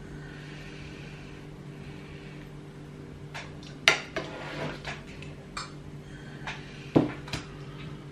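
Knife and fork clinking and scraping against china plates as raw beef is cut into cubes and moved between plates: quiet at first, then a scatter of sharp clinks from about three seconds in, over a steady low hum.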